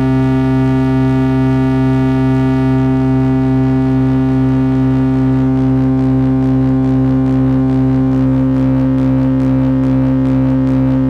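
Eurorack function-generator modules (Make Noise Maths and Behringer Abacus) cycling at audio rate as oscillators, giving a steady low buzzing triangle-wave drone with many harmonics. From about halfway through, a slow wavering comes into the upper harmonics as the knobs are turned.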